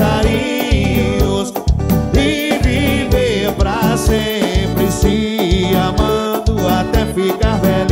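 Brazilian band's recorded song in an instrumental break: a steady drum beat and bass under a wavering melody lead.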